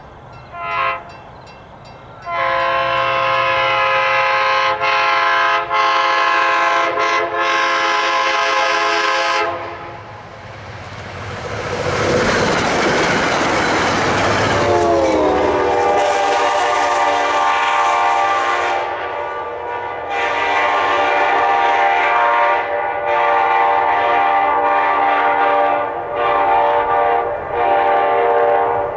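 A train horn with several chime notes sounding a short toot, then long blasts as the locomotive approaches. The train passes close with a loud rush of wheel and engine noise. The horn's pitch drops as the locomotive goes by, and it keeps blowing long blasts as it moves away.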